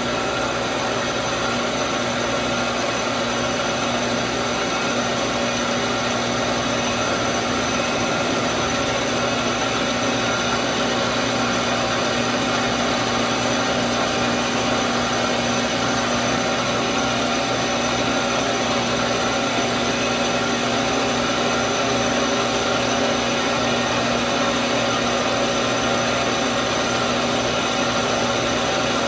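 Metal lathe running steadily with its chuck spinning: an even machine whine made of several steady tones over a noisy hum.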